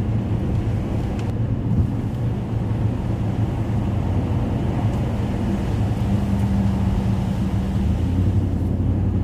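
Steady road and engine noise inside the cabin of a moving vehicle: a continuous low drone, with an engine hum that becomes more distinct about six seconds in.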